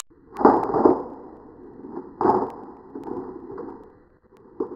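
Slowed-down replay of a coiled steel recoil starter spring springing loose from a chainsaw's recoil housing. It gives several deep, drawn-out metallic clangs that ring and fade.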